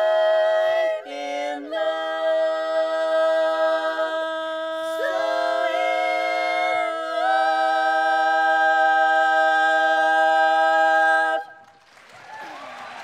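Women's barbershop quartet singing in four-part close harmony a cappella, ending the song on a long held chord that cuts off about eleven seconds in. Applause starts right after.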